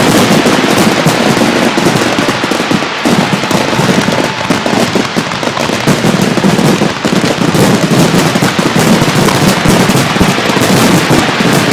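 Fireworks finale barrage: a dense, nearly unbroken run of shell bursts and crackling reports, so rapid they run together.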